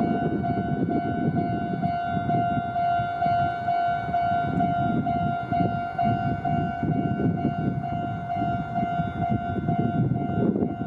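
Japanese railroad crossing warning bell ringing: an electronic bell sounding steady, even, rapid dings on one pitch. Underneath is a continuous low rumbling noise.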